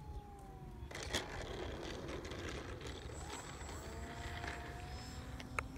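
Radio-controlled model airplane's motor and propeller whining faintly as it speeds up along the ground on its takeoff roll, the pitch rising slowly.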